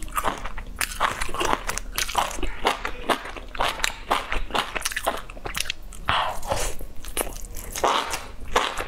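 A person biting and chewing spice-coated grilled enoki mushrooms close to the microphone: a dense run of crisp crunches and chewing clicks, with a few louder crunching bites about six and eight seconds in.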